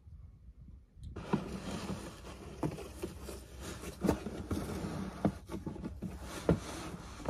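Cardboard box being handled and tugged open: rustling and scraping of cardboard with a string of knocks and thumps, starting about a second in.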